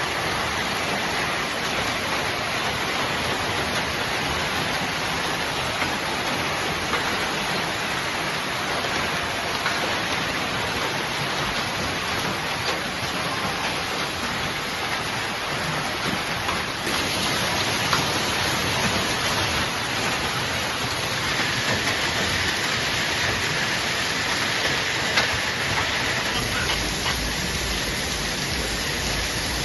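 Heavy rain pouring down in a sudden downpour: a dense, steady hiss of rain hitting the ground, with a slight change in its character about halfway through.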